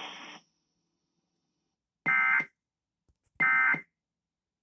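Radio hiss cuts off about half a second in. Then come two short, identical bursts of shrill digital data tones about 1.3 seconds apart: the Emergency Alert System end-of-message signal that closes the broadcast alert.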